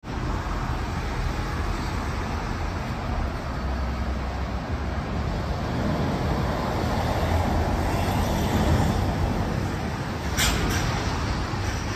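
City road traffic: a steady rumble and tyre noise of passing cars, swelling as a lorry drives by in the middle. Two short sharp clicks sound near the end.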